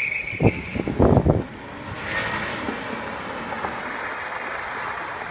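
Two cars launching off the drag-strip start line and accelerating away, heard as a steady rushing noise that carries on after about the second mark. In the first second and a half, loud low buffeting thuds, the loudest sound, stop suddenly.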